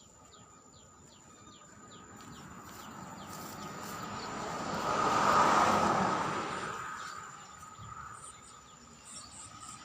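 A vehicle passing by: a rushing noise swells over a few seconds, peaks about halfway through, then fades away.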